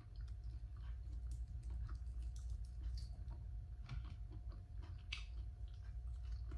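A person chewing and eating roast meat off the bone by hand, with many small irregular wet clicks and smacks of mouth and fingers, over a steady low hum.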